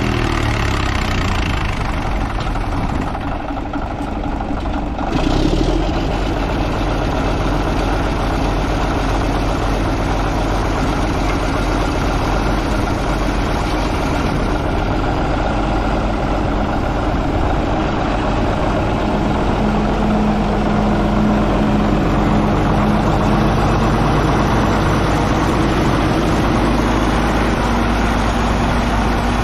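Old Caterpillar D8 bulldozer's engine running steadily, louder from about five seconds in.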